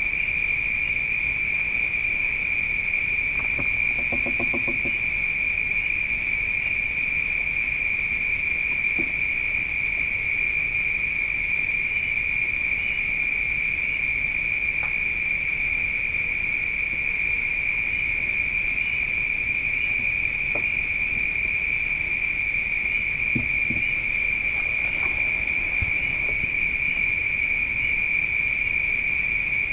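Crickets trilling in a continuous, steady, high-pitched night chorus. A brief faint pitched sound comes about four seconds in.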